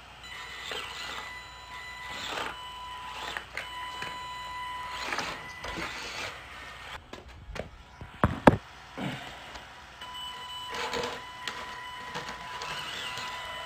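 Small 1/18-scale FMS Atlas 6x6 RC truck driving: its electric motor and drivetrain give a steady high whine that comes and goes, over rushing tyre and gear noise. Two sharp knocks a little past the middle are the loudest sounds.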